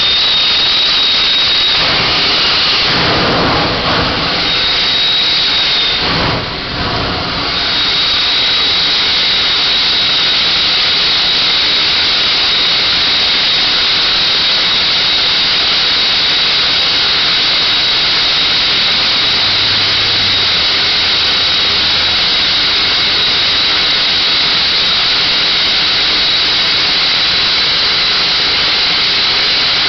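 Loud, steady hiss of gas escaping under pressure from a leaking tank truck, with a thin high whistle on top. The hiss wavers and dips briefly in the first few seconds, then holds even.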